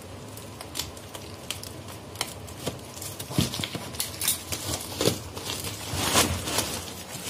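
A woven plastic sack being torn open by hand off a cardboard box: irregular ripping and crackling of the plastic weave with rustling, louder after about six seconds.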